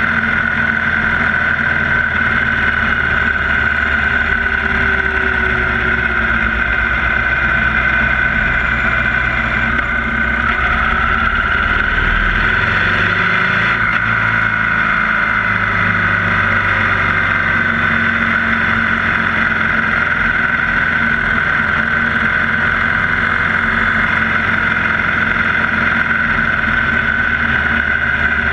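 A 2016 Victory Cross Country 8 Ball's Freedom 106 V-twin runs steadily while cruising, heard from a mount on the moving motorcycle with steady wind and road noise. The engine note changes briefly about halfway through, as the throttle or gear changes on the twisty road.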